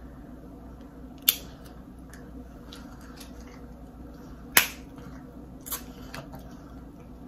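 Snow crab legs' shells cracked open by hand: three sharp snaps, one about a second in, the loudest about halfway through, and a fainter one soon after.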